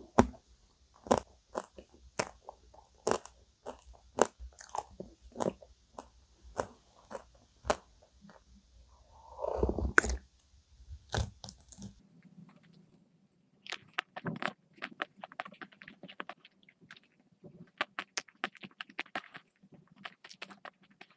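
Close-miked eating sounds: crisp crunching and chewing of chocolate-topped ice cream cake. About nine seconds in comes a longer slurping sip of hot coffee from a mug. From about twelve seconds the crunches come thicker and faster.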